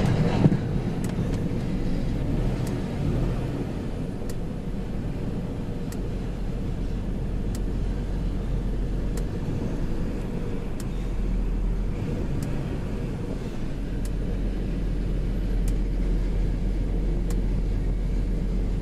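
2004 Chrysler Pacifica's 3.5-litre V6 running with a misfire: a steady low rumble with a faint tick about every second and a half. The misfire comes from a bad wire in the coil wiring harness, not from the coil itself.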